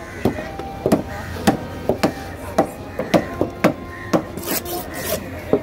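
Large fish-cutting knife chopping through cobia head and bone onto a wooden table, in steady strokes about two a second.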